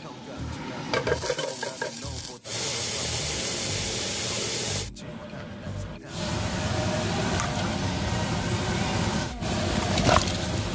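Kitchen food-prep noises in several short clips: a few light knocks of a knife on a cutting board, then a loud steady hiss lasting a couple of seconds, then a lower, rougher steady noise.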